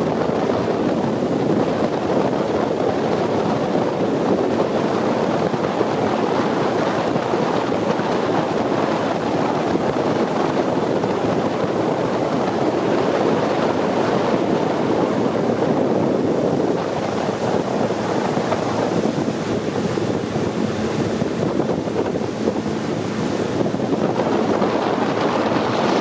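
Long-tail boat under way: the steady running of its engine and the rush of water, mixed with wind buffeting the microphone. It eases off a little about two-thirds of the way through.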